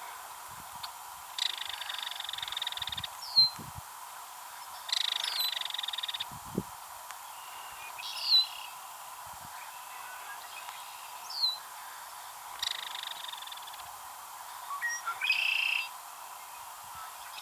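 Belted kingfisher giving its dry, rapid rattle call in about four bursts of a second or more each. Short down-slurred whistled notes from other birds come between the rattles, the sharpest about three seconds in.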